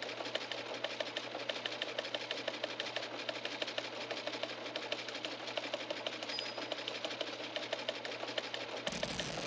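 A small machine running with a rapid, even clatter over a steady low hum, and a brief burst of noise near the end.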